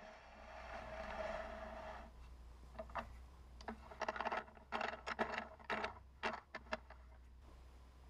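Small metallic clicks, knocks and scrapes as pen-turning bushings and a drilled wooden pen blank are slid onto a wood lathe's mandrel and the tailstock is brought up. A string of light clicks between about three and seven seconds in follows a faint steady hiss with a hum at the start.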